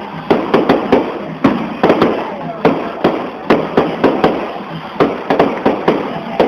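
Fireworks going off in a rapid, irregular string of sharp bangs, a few every second.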